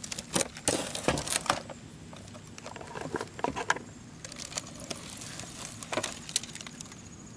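Knocks and clatter of a bullet-damaged Dell laptop's plastic case being turned over and handled on a wooden board, a quick run of clicks in the first second and a half, then scattered knocks as the lid is opened.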